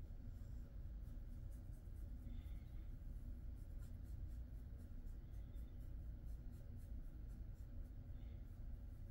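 Faint soft rubbing and scratching of hands massaging a dog's fur, over a low steady hum.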